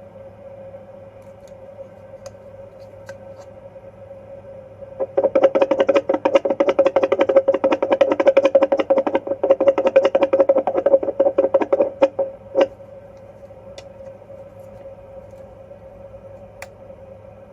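Fetal Doppler monitor's speaker giving a steady electronic hum. About five seconds in, it breaks into roughly seven seconds of loud, rapid pulsing crackle, then falls back to the hum, with a last single pulse just before it settles.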